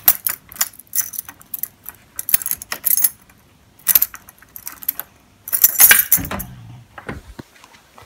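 Short bursts of light rattling and jangling, about six in all, the loudest about six seconds in: the slats of a venetian blind clattering as a hand moves them.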